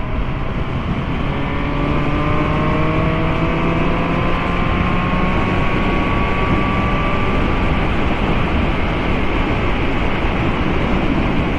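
Motorcycle engine at speed, its note rising slowly for several seconds as it accelerates and then holding steady, under a constant rush of wind noise.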